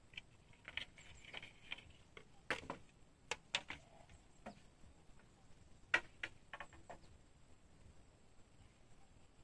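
Irregular sharp clicks and knocks, a dozen or so at uneven spacing, of bamboo and wood being handled during building work, the loudest about six seconds in.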